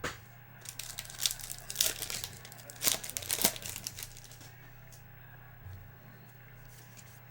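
Trading cards and their packaging being handled, with crinkling and crackling for about four and a half seconds, then only a faint steady hum.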